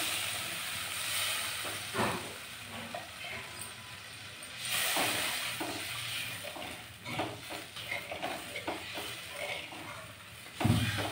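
Water hitting hot fried masala in a kadhai sizzles and hisses, then a metal spatula stirs and scrapes through the thin gravy with scattered knocks against the pan. There is a thump near the end.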